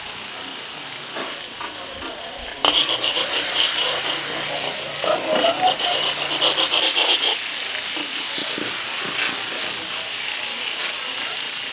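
Sausages frying in hot oil in a wok, sizzling and crackling. About three seconds in it jumps louder and crackles densely for several seconds while they are stirred and lifted with a metal skimmer.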